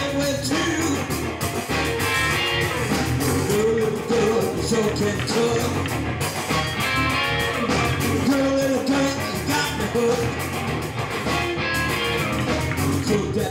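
Small rock band playing live: electric guitar, bass guitar and drum kit, with a man singing over them.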